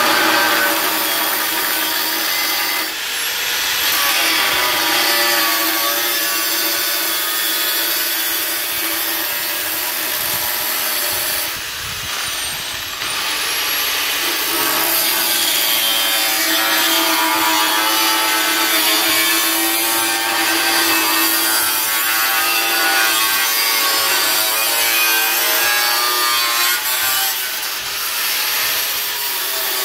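Handheld angle grinder with a cutting disc slicing through a painted sheet-metal plate, a continuous loud grinding whine. The cut eases off briefly a few seconds in and again about twelve seconds in, the motor's pitch dropping and climbing back.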